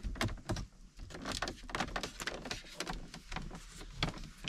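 Plastic dashboard trim around the centre air vents of a BMW X5 F15 creaking in a quick, irregular run of small cracks and clicks as a finger presses on it lightly. It is loose, badly fitted trim that creaks the same way while driving.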